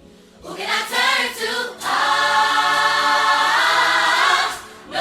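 Background music with choral singing: voices come in about half a second in and hold one long chord through the middle, dropping away briefly near the end.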